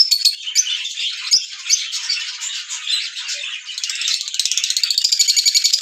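Small pet parrots chirping and chattering in high-pitched calls, with a fast rattling trill in the second half.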